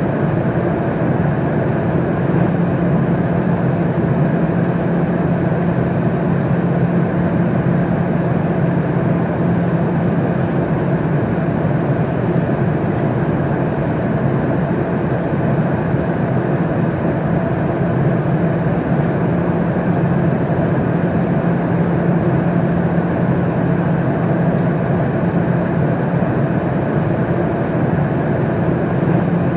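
Steady airliner cabin noise in cruise flight: an even, unbroken rush of engine and airflow noise with a strong low hum.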